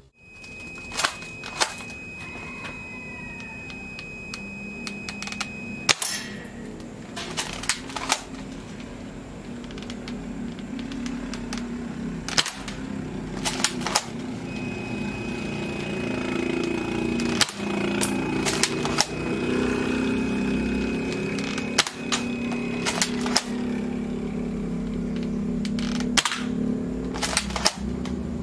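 Spring-powered airsoft rifle, an SVT-40 replica built on a Crosman M47, fired again and again: sharp snaps and clicks every few seconds, some in close pairs, over a steady low hum.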